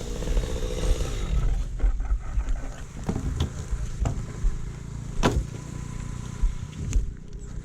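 Two-stroke chainsaw idling after a cut, then running down and stopping about a second and a half in. After it come a few sharp knocks over a low rumble on the microphone.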